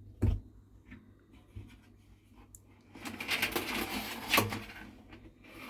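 Long plastic cable tie being worked into the gap between a washing machine's drum and its plastic tub: a single knock just after the start, then about two seconds of scraping and rustling in the second half.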